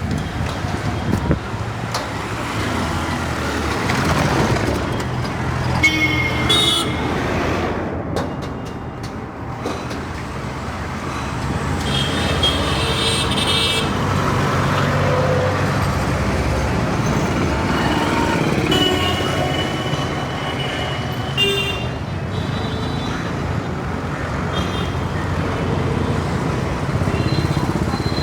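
Busy Indian street traffic: engines running in a steady rumble, with vehicle horns honking several times, some in short toots and a couple held for a second or more.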